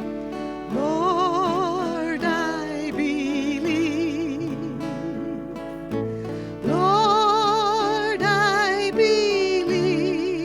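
Instrumental break in a gospel song: a lead melody line with wide vibrato slides up into long held notes twice, over steady sustained accompaniment.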